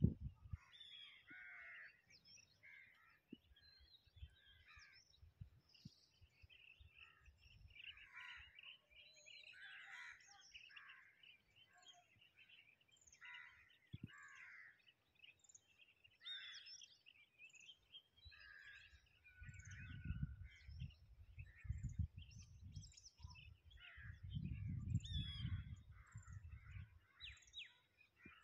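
Many birds chirping and calling together, short overlapping calls and trills throughout. Two spells of low rumbling noise come in the second half.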